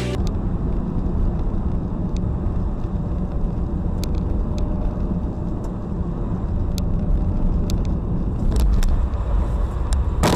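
Steady low road and engine rumble of a car driving on a snowy road, heard from inside the cabin by the dashcam, with a few faint clicks.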